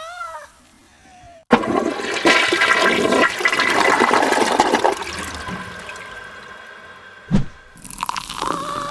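Coke-and-Mentos geysers gushing: a sudden loud rush of fizzing, spraying soda foam from 2-litre Coca-Cola bottles that slowly dies down over several seconds. A single thump comes near the end.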